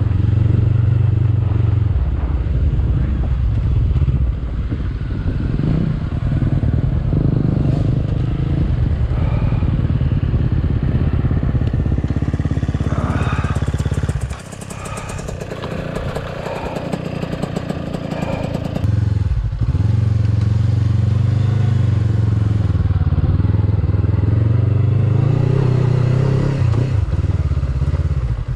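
Honda CB500X's parallel-twin engine running at low revs off-road; about fourteen seconds in it drops back while another dirt bike's engine is heard close by, and around twenty seconds in it pulls away again.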